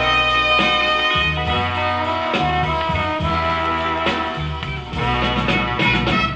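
Instrumental dance-orchestra music from a 1968 record, with a steady, repeating bass line under sustained melody lines.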